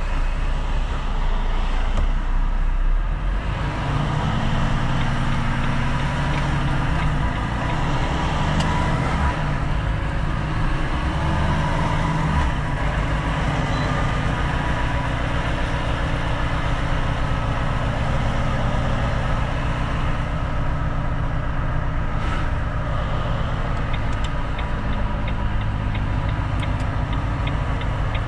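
Volvo FM4 truck's diesel engine running under way. Its pitch shifts over the first few seconds, then it runs steadily. A regular light ticking starts near the end.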